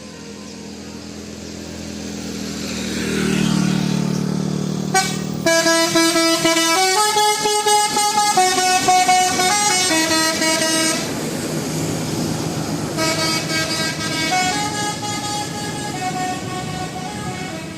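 A heavy vehicle's engine approaches and grows louder. Then a telolet multi-tone musical horn plays a stepped melody for about five seconds. After a short break, a second horn phrase follows.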